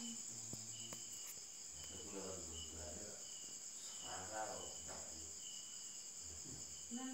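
Crickets chirring steadily in high-pitched, unbroken trills, with a shorter, lower chirp repeating every second or so.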